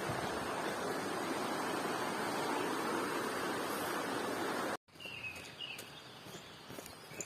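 A steady, even rushing noise that cuts off sharply about five seconds in. A quieter outdoor ambience follows, with a few short high chirps and light clicks.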